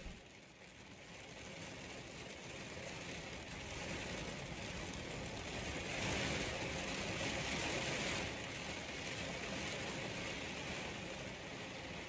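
Heavy rain pelting the van's window and body, heard from inside the van. It swells heavier about six seconds in, then eases after a couple of seconds.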